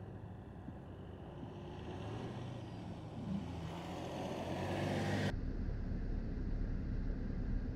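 Mercedes-Benz GLS 580's 4.0-litre biturbo V8 running as the SUV drives through soft sand, with a hiss that grows as it comes closer. About five seconds in the sound cuts abruptly to a duller, steady low rumble of the SUV driving across flat desert ground.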